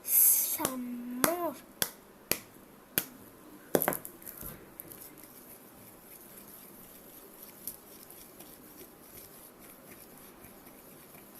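A few sharp clicks and taps from slime being worked with a mixing stick on a plate, about four in the first four seconds, then only a faint steady background. A short hummed voice sound comes about a second in.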